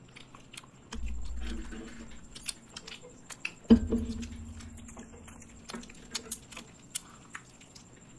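Close-miked eating sounds: people biting and chewing fried chicken drumsticks, a string of short wet mouth clicks and smacks. Two louder low thumps come about a second in and just before four seconds in, the second followed by a low hum lasting about a second and a half.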